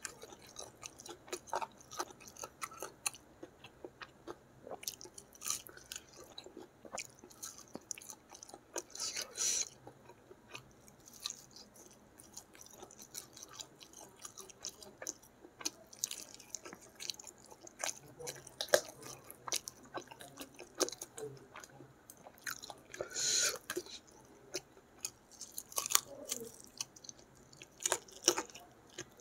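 Close-miked eating sounds of rice and chicken curry eaten by hand: chewing with irregular wet smacks and clicks. A couple of longer, louder mouth sounds come about nine and twenty-three seconds in.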